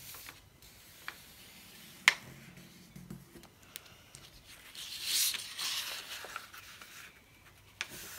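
A sheet of A4 paper being folded and handled by hand on a cutting mat: soft rustling and sliding, with a longer swishing rustle about five seconds in and a few light clicks. The loudest of the clicks is a sharp one about two seconds in.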